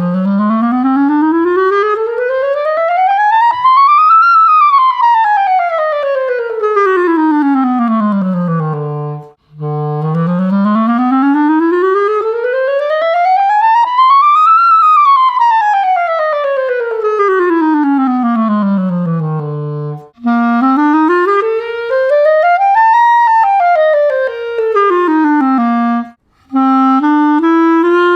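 Cheap plastic student clarinet, fitted with a professional mouthpiece, ligature and reed, playing long stepwise scales from its lowest note up about three octaves and back down. It plays two full runs, then a shorter one reaching about an octave lower at the top, and starts another climb near the end, with a brief breath between runs.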